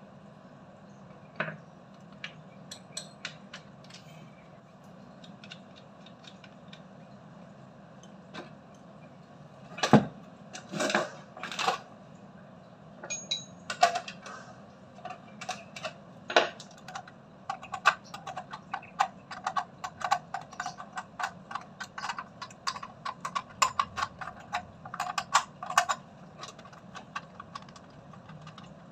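Hand tools and metal fittings clicking and clinking against the plastic base and housing of a new Shimizu water pump as it is set in place and fastened down. A loud knock comes about ten seconds in, followed later by a long run of quick clicks.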